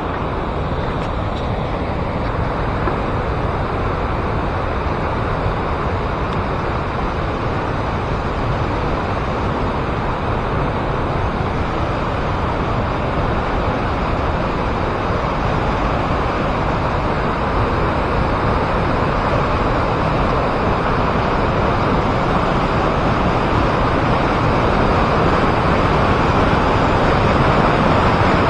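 Waterfall rushing, a steady wash of falling water that grows gradually louder.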